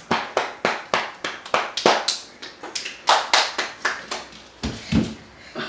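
Hands clapping in a quick, fairly even rhythm, about three claps a second, with a couple of deeper thuds near the end.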